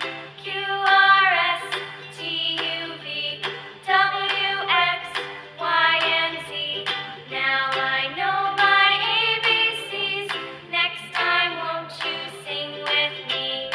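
Background music with a high singing voice, like a children's song, over a regular beat.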